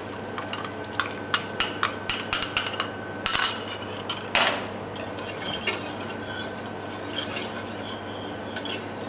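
Wire whisk stirring rennet into milk in a stainless steel saucepan: quick metallic clinks against the pan for the first few seconds, two short swishes, then softer stirring.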